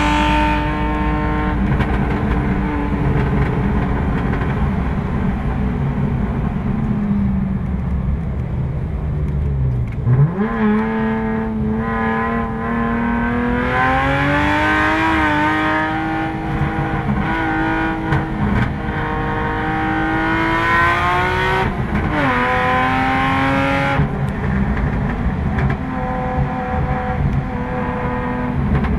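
Car engine heard from inside the cabin at speed. The note holds steady, sinks low about ten seconds in, then climbs again as the car picks up speed. It drops briefly at a gear change about 22 seconds in.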